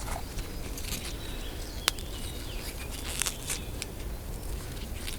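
Wild garlic (ramsons) leaves snapped and bent right at the microphone: a few short, crisp cracks, the sharpest about two seconds in and several fainter ones after. The crack is the feature that tells wild garlic apart from look-alikes such as lily of the valley.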